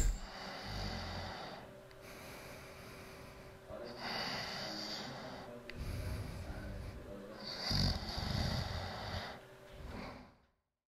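A person snoring in slow, regular breaths, roughly one every two seconds.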